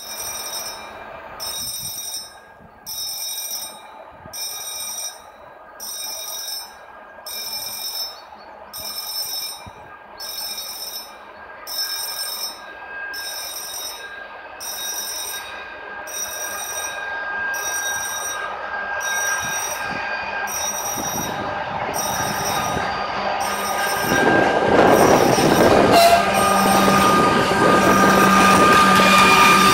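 Level-crossing warning signal sounding in high-pitched pulses about once a second. Under it, a freight train's diesel locomotive approaches with a rising rumble that becomes loud over the last few seconds, as the warning pulses fade out.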